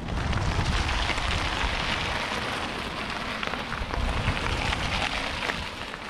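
A steady hiss of rushing river water, with a low wind rumble on the microphone.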